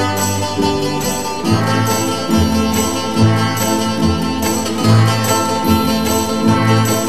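Instrumental music with a steady beat over a low bass line.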